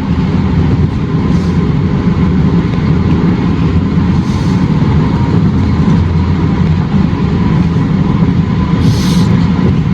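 Steady low rumble of a car driving at highway speed, heard inside the cabin: engine and tyre noise, with a faint steady tone and a few brief hisses.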